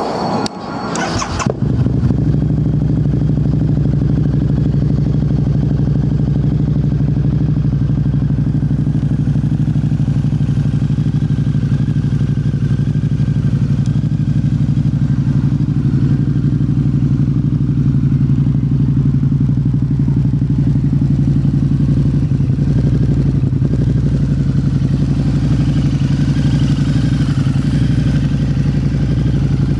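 2010 Harley-Davidson V-Rod Muscle's liquid-cooled 1250 cc V-twin through its dual Vance & Hines exhaust, starting up about a second and a half in and then idling steadily.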